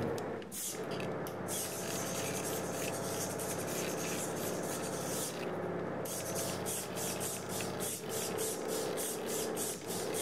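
Water-hydraulic drive of an artificial-muscle robotic arm running: a steady pump hum overlaid by a hiss that pulses several times a second, breaking off briefly about five seconds in.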